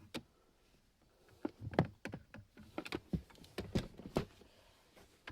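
Irregular plastic clicks and light knocks from hands and a tool working on a car's centre console trim, about a dozen in all, some in quick pairs.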